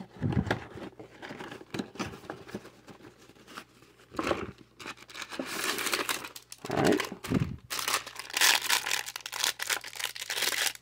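Packaging being handled: a cardboard box and insert being worked out of a toy box, then a plastic accessory bag crinkling in the hands. The rustle is irregular, with a few dull bumps, and becomes a dense, continuous crinkling in the second half.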